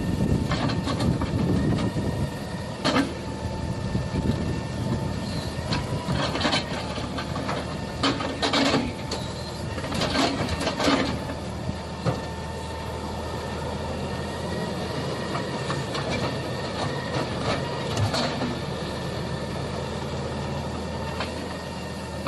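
Wheeled hydraulic grab machine's engine running steadily with a constant hydraulic whine, broken by a handful of sharp clanks and knocks as it works.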